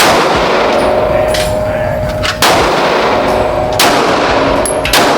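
Pistol shots: four loud reports at an uneven pace, at the start, about two and a half seconds in, about a second later, and near the end, each with a long ringing tail. Fainter shots sound in between.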